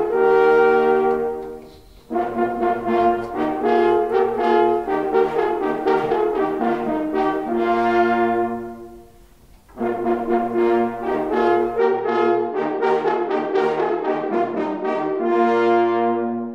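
Brass horns playing slow, held chords in long phrases, each fading out, with short breaks about two seconds in and near ten seconds.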